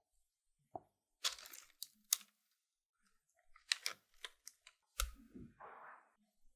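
Parchment paper lining a metal loaf tin crinkling as thick banana cake batter is poured in from a glass bowl, a series of sharp crackles and soft plops. A heavier thump comes about five seconds in as the bulk of the batter lands in the tin.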